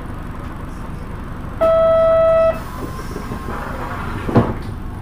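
Buses running at a terminal, with one loud steady beep, just under a second long, about a second and a half in, and a single sharp knock near the end.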